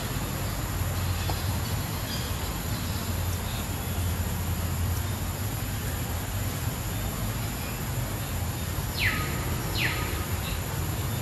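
Outdoor ambience with a steady low rumble. Near the end come two quick falling bird calls, one after the other.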